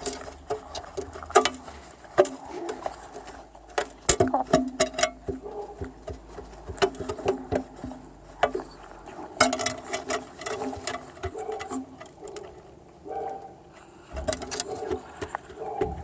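Chickens pecking at feed: irregular quick taps of beaks striking food and the ground, sometimes in rapid clusters.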